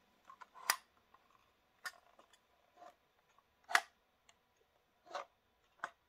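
Loose metal weight plate sliding and clicking inside a plastic model railway coach as it is tilted in the hand: five short, sharp clicks about a second apart, the sign that the plate is not held firmly in the car.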